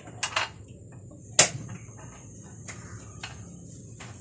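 A few sharp clicks and knocks of a stove being turned on, the loudest about a second and a half in, over a steady high-pitched whine.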